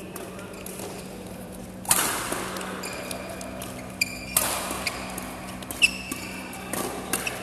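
Badminton rackets striking the shuttlecock in a fast doubles rally: several sharp hits a second or two apart, the hard smashes ringing on in the large hall. Short high squeaks of court shoes on the floor come in between.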